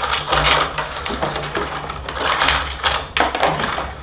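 Rawhide lacing being pulled off a 16-inch rawhide frame drum, stiff strands scraping and rustling against the drum's hide and rim with a run of small crackly clicks.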